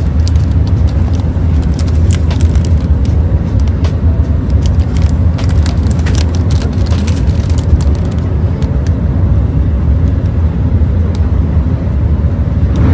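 Steady low rumble of a vehicle in motion, with scattered light clicks and rattles.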